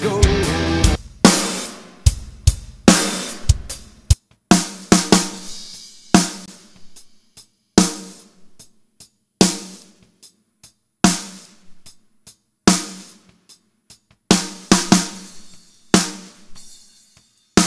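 Sampled rock drum kit in Superior Drummer 3 playing a sparse pattern, one hit about every 0.8 s, each ringing out with a long decay. About two seconds in, the low end drops away and the hits sound thinner.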